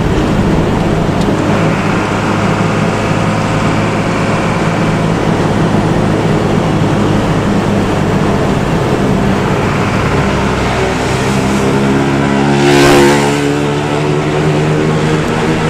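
Bus diesel engine running steadily, heard from inside the bus. About two-thirds of the way through its note climbs as it accelerates, and a brief loud hiss comes soon after.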